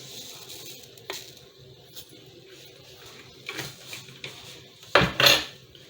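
Water boiling in a saucepan with a faint steady hiss, a few light clicks, then a louder clatter of a spoon against the pan near the end as tea powder is added to the boiling spiced water.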